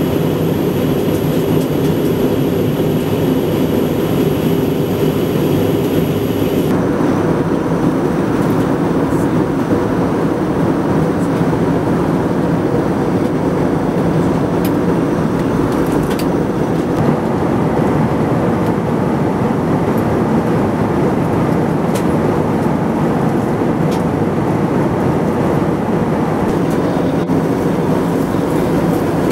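Steady airliner cabin noise in cruise flight, the drone of the jet engines and rushing air heard from inside the fuselage. A faint high whine sounds over it for the first few seconds and cuts off suddenly.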